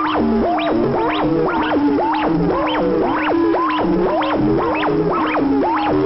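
Buchla and Eurorack modular synthesizers playing electronic music: quick chirping pitch sweeps that rise sharply, about four a second, over a steady lower tone that slides a little now and then.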